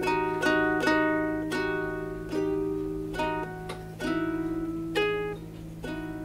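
Ukulele playing slow strummed chords, about one a second and spreading out toward the end, each chord left to ring and fade.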